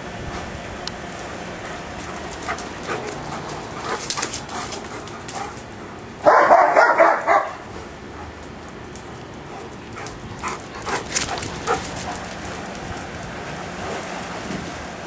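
Giant Schnauzer barking: one quick run of several barks about six seconds in, lasting about a second, with scattered small clicks and knocks around it.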